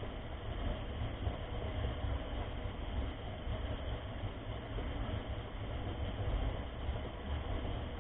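Steady rumbling noise from a mountain bike ride: wind buffeting the camera's microphone over tyre and trail rumble, with no letup.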